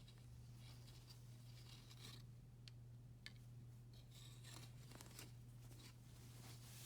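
Near silence with faint, irregular rustling and a few light clicks of small objects being handled, over a steady low hum.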